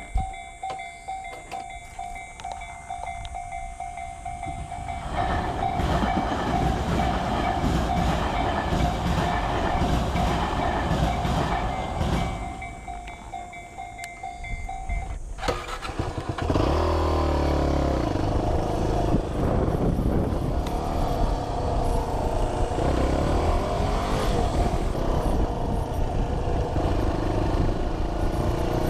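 Railway crossing warning bell ringing steadily while an electric commuter train rumbles through. The bell cuts off about halfway. Then road vehicles, a motorcycle among them, move off across the tracks, their engines revving up and down.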